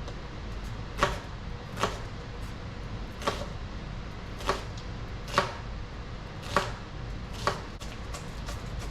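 Kitchen knife chopping vegetables on a cutting board: about seven separate sharp chops, roughly one a second at an uneven pace.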